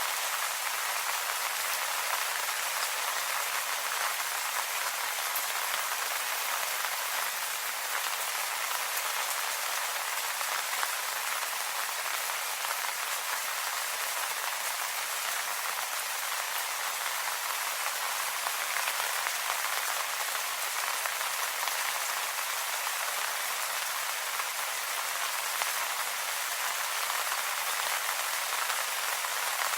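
Steady rain falling on leaves, a dense, even patter of drops.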